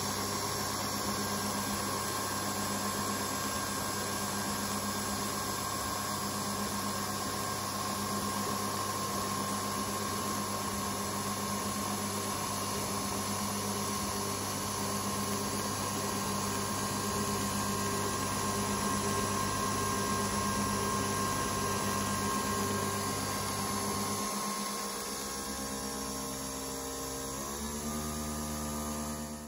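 Pod coffee machine running as it dispenses coffee into a mug: a steady motor and pump hum. Near the end the hum changes and its pitch shifts in several steps.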